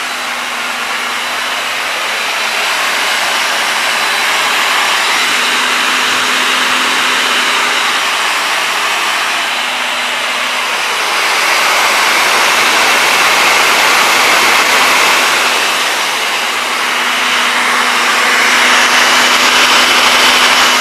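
A pair of 70 mm 12-blade electric ducted fans on a model airliner running steadily: a whooshing rush of air with a faint steady hum, swelling and easing slightly a few times.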